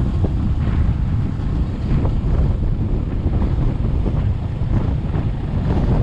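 Wind buffeting the action camera's microphone on a moving motorbike: a loud, steady noise that sits mostly low, with the bike's engine buried under it.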